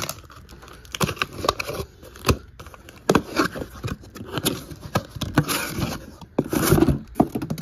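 Cardboard shipping case being opened by hand: a run of short scrapes, taps and rustles as the flaps are pulled apart and folded back, with louder rustling bursts about five and a half and seven seconds in.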